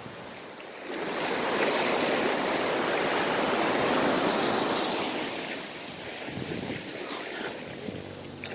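Ocean surf: a wave washes up a sand beach in shallow water, its rush swelling about a second in and fading over the last few seconds.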